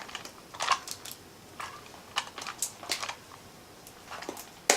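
Toy packaging rustling and crinkling as it is handled and opened, in scattered short crackles, with a sharp click near the end.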